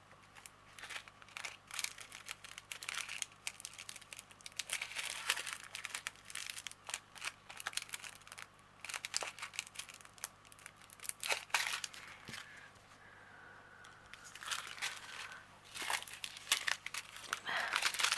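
Small plastic packets of diamond painting drills crinkling and rustling as they are handled, with irregular crackles and light clicks.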